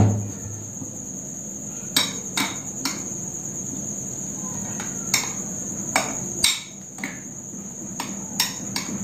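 A metal spoon clinking and scraping against a glass bowl as curd is stirred into thick ground chutney, in irregular clinks every second or so. A dull knock comes at the very start, and a steady high-pitched whine runs underneath throughout.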